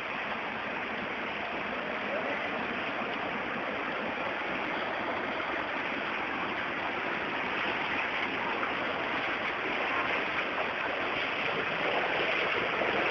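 Steady rushing hiss of heavy rain and flowing floodwater, even throughout and growing a little louder toward the end.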